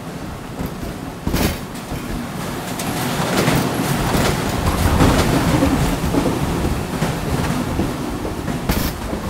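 Airport baggage conveyor carrying a checked bag in a tray: a steady rumble and rattle that builds over the first few seconds. Sharp knocks come about a second and a half in and again near the end.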